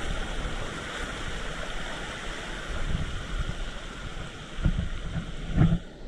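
Steady rush of water at a waterfall, with wind buffeting the microphone in low thumps, the loudest just before the end, where the sound changes abruptly.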